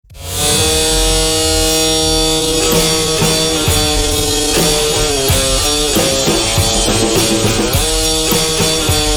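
Rock band music starting abruptly after silence and carrying on loud, with drums and guitar under held chords that change every second or so.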